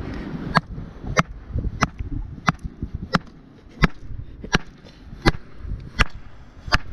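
A geological hammer strikes a hard rock nodule on shale about ten times, in sharp, evenly spaced blows roughly two-thirds of a second apart. The nodule does not split; the blows ring out against stone that is "friggin' hard".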